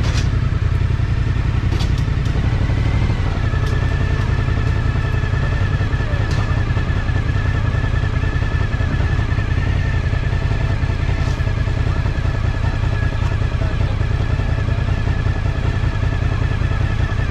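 Suzuki 1000cc motorcycle engine idling steadily at a standstill, heard from the rider's seat, with a few light clicks.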